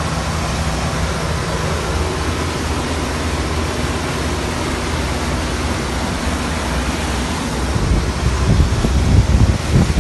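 Starfisher 840 motor cruiser under way at speed: a steady engine drone beneath the rushing hiss of the churned wake. From about eight seconds in, wind buffets the microphone in gusts.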